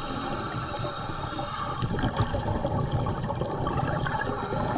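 Steady underwater water noise picked up by a diver's camera, with faint gurgling.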